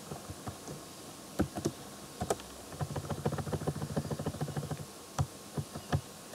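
Computer keyboard keystrokes: scattered single key clicks, with a quick run of rapid taps in the middle.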